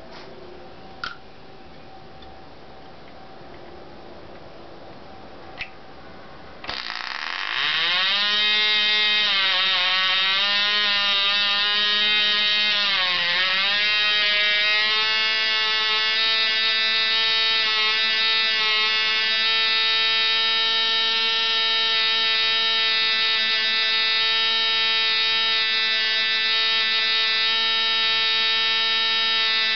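Cox 0.7 cc (.049) model glow engine, a tiny two-stroke, catching suddenly about a quarter of the way in after two faint clicks, then running at a high buzzing whine. Its pitch sweeps up, dips twice as the fuel needle valve is being set, then holds steady.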